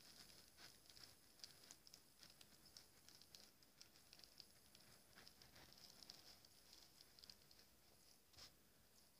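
Faint, scattered little ticks and crinkles of a clear plastic bag of steel shavings being handled, the shavings shifting inside it.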